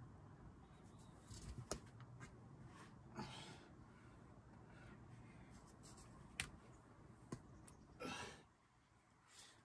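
Faint sounds of a boulderer climbing: a few short, hard exhalations, the loudest about eight seconds in, and sharp taps and scrapes of climbing shoes and hands on the rock.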